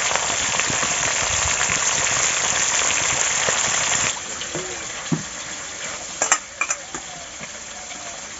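Food frying in hot oil in a pan: a loud, steady sizzle that drops off suddenly about four seconds in, then a quieter sizzle with a few sharp clinks a couple of seconds later.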